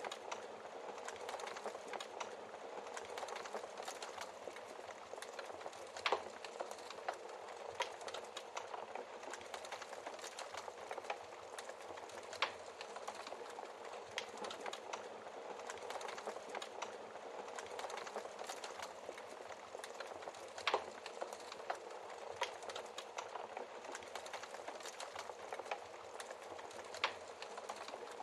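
Wood fire crackling steadily in a fireplace, with many small snaps and a louder log pop every six to eight seconds.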